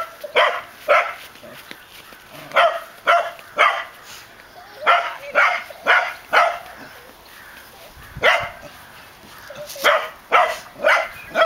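A dog barking repeatedly in short, sharp barks about half a second apart, in runs of two to four with short pauses between.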